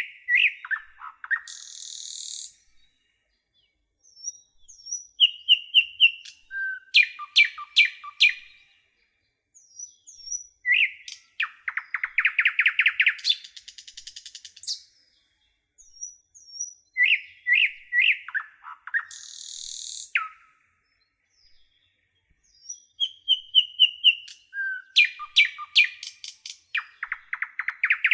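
A nightingale singing: about five song phrases, each a few seconds of varied whistles and fast trills of repeated notes, separated by short pauses.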